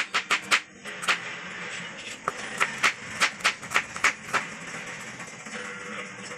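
Kitchen knife chopping a red onion on a wooden cutting board: a run of sharp knocks of the blade hitting the board, about three a second, with a short pause around the first second, stopping after about four and a half seconds.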